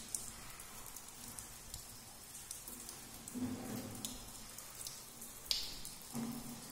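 Water dripping and splashing onto a wet stone floor in scattered drops, with one sharper splash a little over five seconds in.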